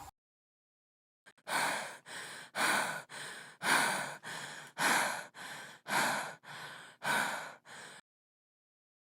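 A person breathing heavily, in a run of about a dozen breaths that alternate louder and softer, roughly one pair a second. It starts a little over a second in and stops near the end.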